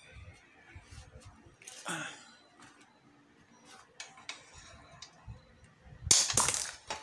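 Hammer blows on a drift driving out a motorcycle's lower steering-head bearing cup. Light taps are followed by a loud run of metal strikes and clatter about six seconds in, as the cup comes free. A short breathy exhale comes about two seconds in.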